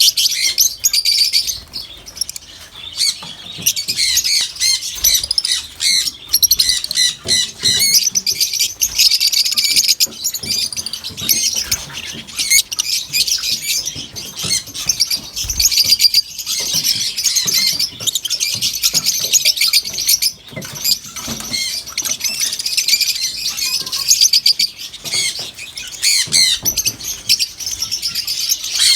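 Many small birds chirping at once: a dense, unbroken chatter of overlapping high calls.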